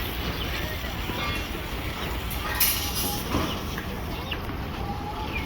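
Construction-site background: a steady low rumble with faint scattered clinks, and one sharp knock about two and a half seconds in.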